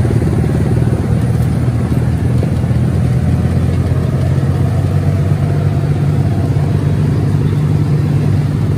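Small farm tractor's engine running steadily at an even speed.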